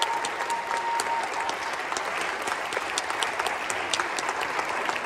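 Audience applauding, many hands clapping at once. A thin steady high tone fades out about a second in.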